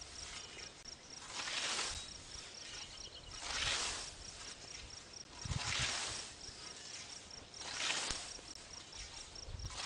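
Scythe blade swishing through tall meadow grass in steady mowing strokes, four cuts about two seconds apart, each a rising and falling swish of shearing stems.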